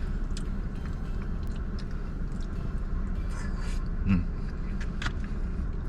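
Steady low rumble like a car engine idling, with a few light clicks from eating and a short hum of appreciation about four seconds in.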